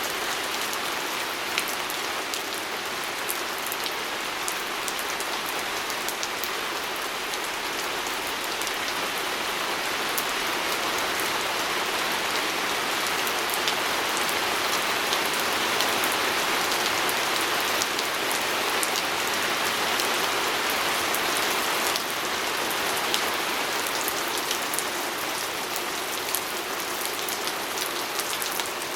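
Steady rain pattering on a window, an even hiss with many small sharp drop ticks, swelling slightly in the middle.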